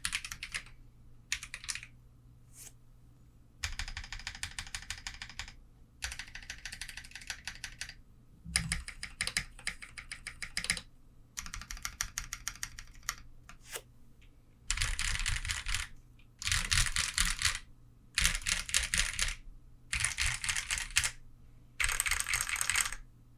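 Portico mechanical keyboard with Holy Panda tactile switches, single keys pressed over and over in quick runs of clicks with short pauses between the runs.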